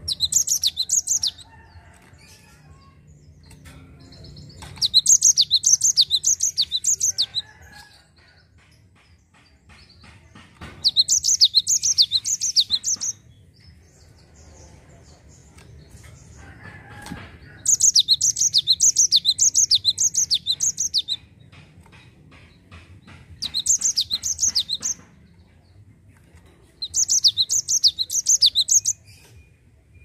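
Cinereous tit (gelatik batu) singing its rolling song: six bouts of sharp, rapidly repeated high whistled notes, about three a second, separated by short pauses.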